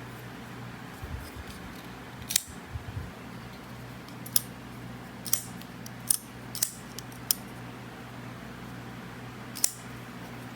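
Button-lock folding pocket knife clicking as its blade is flicked open and shut: about seven sharp metallic snaps, scattered irregularly.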